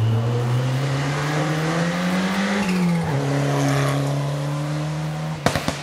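Rally car's engine pulling hard on a gravel stage, its note climbing steadily, then dropping sharply about three seconds in and holding level as the car runs on. Near the end a quick run of sharp clicks cuts in.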